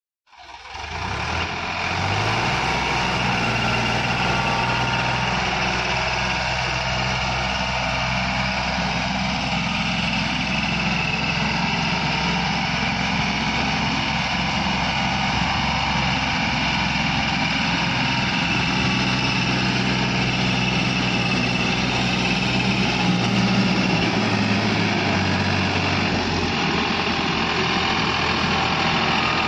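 Farmtrac 60 tractor's three-cylinder diesel engine running steadily under load while pulling a heavily loaded trolley, with a shift in its engine note near the end.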